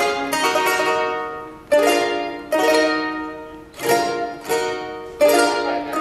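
Charango strummed in full chords, about five strokes a few seconds apart, each chord left to ring and fade.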